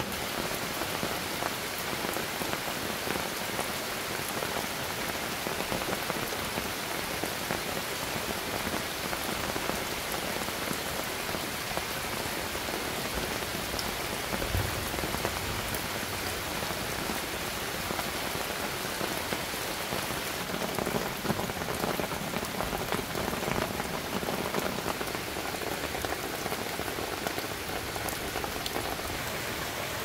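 Heavy rain falling steadily, a dense even patter of drops on surfaces, with one brief low thump about halfway through.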